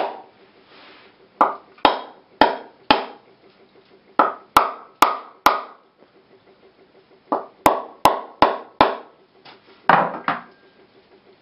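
Claw hammer striking a mature coconut's hard shell as it is held in the palm: sharp, short-ringing knocks in quick runs of four or five, tapping around the shell's middle until it splits open near the end.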